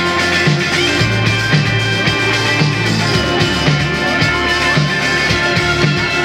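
Live band playing rock music with drums, electric guitar and keyboards, on a steady beat of about two beats a second.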